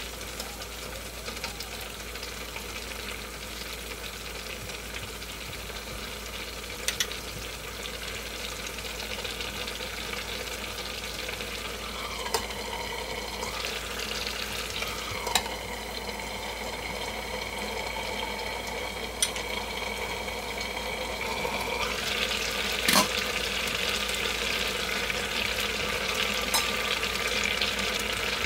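Spicy soft tofu stew (sundubu-jjigae) simmering and sizzling in a pan as a wooden spoon stirs it, with a few sharp knocks of the spoon against the pan. The simmer grows louder about three-quarters of the way through.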